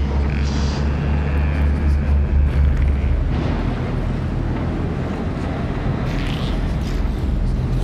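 Layered horror sound-effects montage: a deep, throbbing rumble with hissing sweeps about three and six seconds in.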